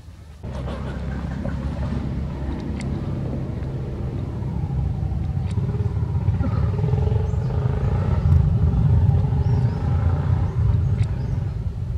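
A motor vehicle engine running, cutting in abruptly about half a second in and growing louder toward the middle before easing a little.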